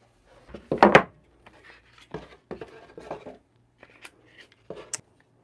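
Cardboard packaging being handled as a boxed hand grinder is unpacked: the lid comes off and the grinder is drawn out of its fitted cardboard insert, with scattered knocks, scrapes and rubbing. The loudest knock comes about a second in, and there are sharp clicks near the end.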